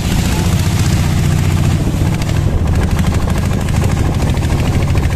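Small river boat's motor running steadily at speed, a fast pulsing engine note, with water rushing along the wooden hull.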